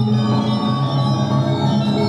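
Balinese gamelan music, with bronze metallophones and gongs ringing in dense, sustained tones that accompany a traditional dance.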